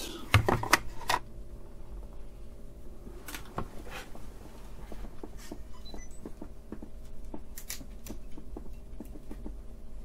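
Hard plastic clicks and knocks as a camera battery charger is pushed into a mains extension socket strip, all within the first second or so. After that only a faint steady hum with scattered small ticks.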